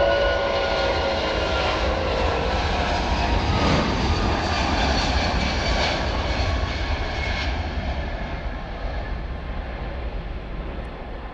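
The four Rolls-Royce Trent 500 turbofans of an Airbus A340-642 at takeoff thrust on the takeoff roll, as the jet accelerates past and away down the runway. Whining engine tones drop slightly in pitch as it passes, over a broad, steady engine noise that fades gradually over the last few seconds.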